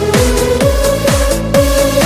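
Electronic dance music with a steady kick-drum beat about twice a second under a sustained synth melody.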